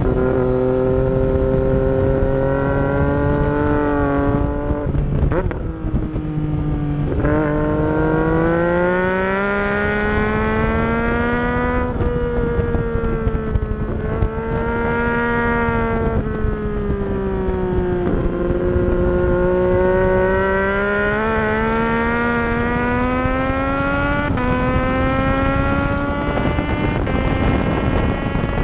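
2012 Triumph Street Triple's 675 cc inline three-cylinder engine pulling hard around a race track, its pitch rising and falling through the corners. There are quick gear changes about five and seven seconds in, and smaller ones later.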